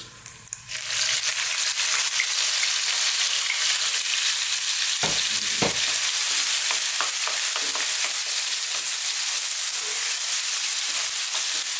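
Chopped onions sizzling in hot oil, a steady hiss that swells about a second in as they land in the pan, with a wooden spatula stirring them and two louder knocks about five seconds in.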